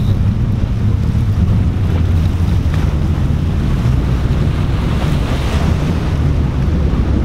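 Wind buffeting the microphone in a steady low rumble, over waves washing against the jetty rocks.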